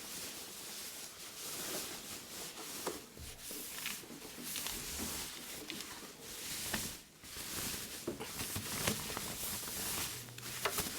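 Rustling and scraping of a thin foam wrapping bag being pulled off an acoustic guitar, with scattered small handling clicks and knocks.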